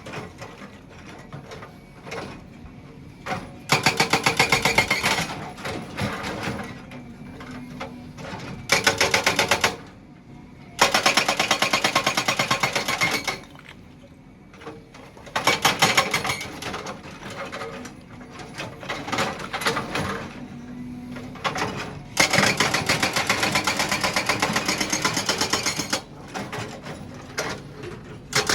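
Excavator-mounted hydraulic breaker hammering in bursts of rapid, evenly spaced blows, each burst lasting one to four seconds, with the machine running more quietly between bursts.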